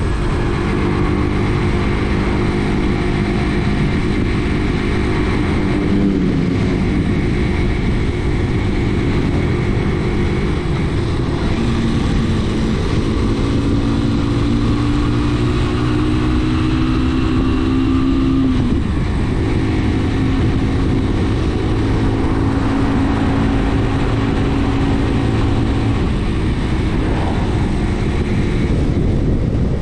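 A Brixton motorcycle's engine running under way, climbing in pitch as it pulls through the gears and dropping back at gear changes about six and eighteen seconds in. A steady rush of wind and road noise runs underneath.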